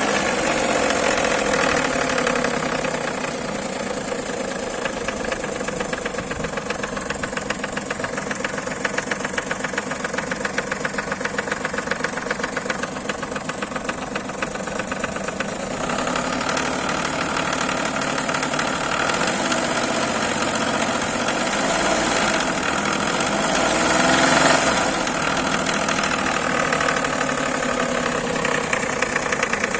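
Suzuki K6A three-cylinder engine running with a fast, steady timing-chain knock, the sign of a faulty hydraulic chain tensioner. The engine note changes about halfway through and swells briefly near the end.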